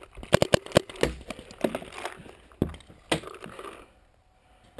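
Paintball fire at close range: a string of sharp, irregular cracks and smacks, several packed into the first second and a few more spaced out up to about three seconds in, after which it goes quiet.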